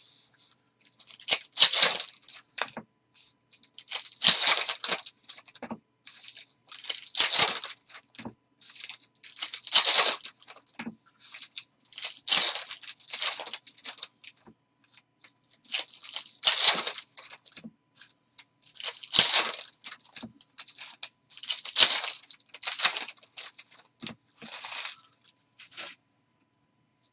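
Basketball trading-card pack wrappers being torn open one after another: about a dozen quick rips, one every two seconds or so.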